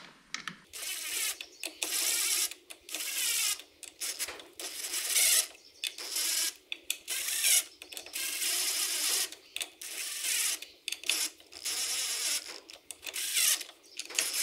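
Cordless drill/driver spinning a 10 mm socket in many short bursts with brief pauses, running the four clutch spring bolts down a little at a time. This is the stage that compresses the new clutch springs and sets the tension on the clutch pack.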